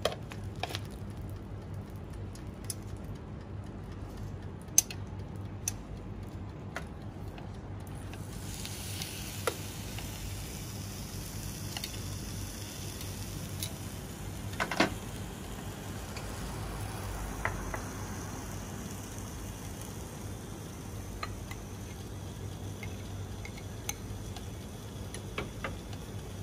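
Prawns and a lemon half sizzling on the hot plate of an electric contact grill, steady throughout, with a few sharp clicks of metal tongs. From about eight seconds in the sizzle turns brighter and hissier.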